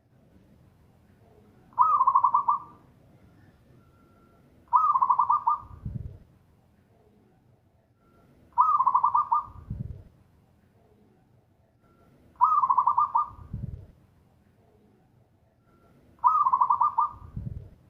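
Zebra dove (perkutut) singing its repeated song five times, about every four seconds: each phrase is a fast, rippling trill followed by a deep low coo.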